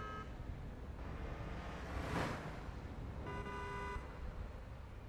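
Urban harbor ambience: a steady low rumble of distant traffic and machinery, a vehicle passing about two seconds in, and two short horn toots, one at the very start and one about three seconds in.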